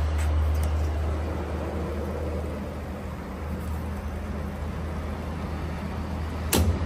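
Steady low machinery hum over an even background noise, with one sharp click near the end.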